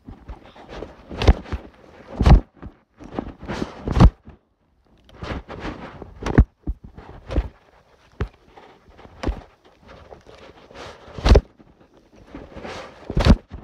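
A series of irregular sharp knocks and thuds, roughly one a second, breaking off for a moment about four and a half seconds in; the loudest come near the end.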